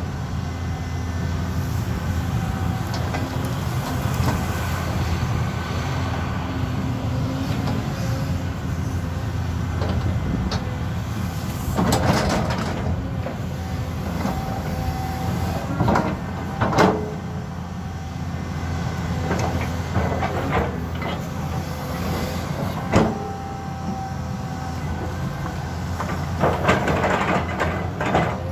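Caterpillar 320D2 hydraulic excavator's diesel engine running steadily while it digs and clears ground, with a handful of sharp clanks from the bucket and boom as it works.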